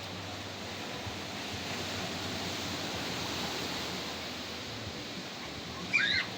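Sea waves washing on the beach, an even rushing noise, with a brief high-pitched call just before the end.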